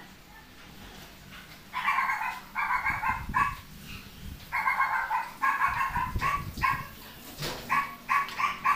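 A dog barking repeatedly and high-pitched, in runs of quick barks starting about two seconds in, the barks growing shorter and quicker near the end.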